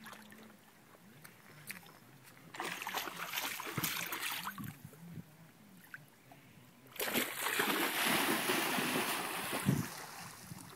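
German Shepherd puppy splashing through lake water: a short burst of splashing, then about seven seconds in a longer, louder spell of splashing as she bounds out from the shallows into deeper water.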